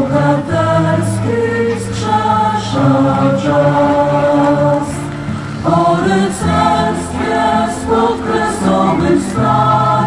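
A choir singing slow, sustained chords.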